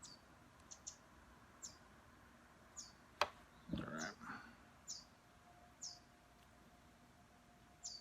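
Faint chirping of a small bird: short, high, falling chirps about once a second. A sharp click comes about three seconds in, followed by a brief rattle of something being handled.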